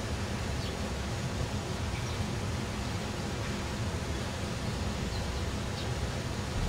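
Steady low rumble with a hiss of outdoor background noise, with a few faint short high chirps scattered through.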